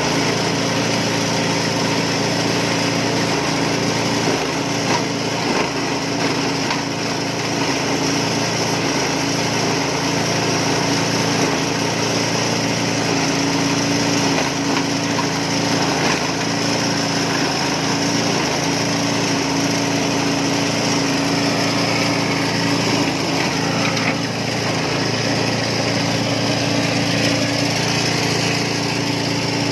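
Compost and organic-waste shredder machine running steadily, a constant engine-like hum under a rough, even chopping noise.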